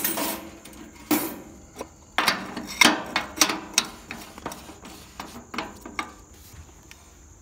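Metal filler cap and dipstick being handled on a bulldozer's sheet-metal fuel tank: a run of sharp clicks and clanks as the cap is set on the filler neck and twisted shut, thickest about two to four seconds in.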